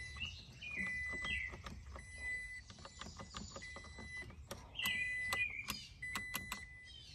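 Keys clicking and jingling as the key goes into the truck's ignition and is turned, with a thin high beep tone sounding on and off and birds chirping.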